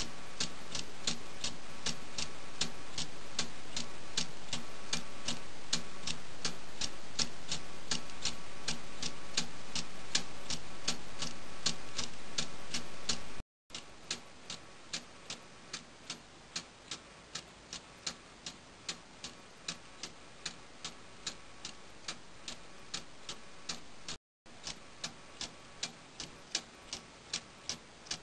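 Escapement of a clockwork-driven Meccano balance-wheel clock ticking steadily and evenly as its spring-loaded balance wheel swings back and forth. The sound cuts out briefly twice; after the first cut the ticks stand out more sharply against a quieter background.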